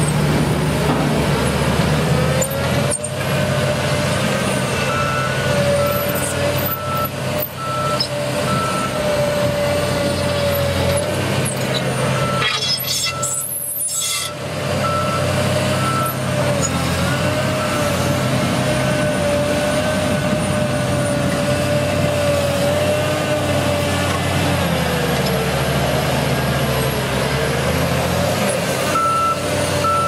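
Diesel engine of a John Deere rubber-tracked dozer running steadily under load as it pushes gravel, with a whine that wavers in pitch. A vehicle reversing alarm beeps evenly in several spells, about five seconds in, around twelve to eighteen seconds, and again near the end.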